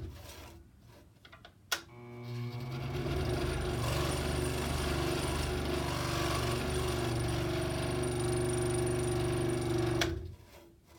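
Scroll saw motor winding down from a stop, a sharp click, then the saw starting up again and running steadily for about eight seconds before it is shut off near the end.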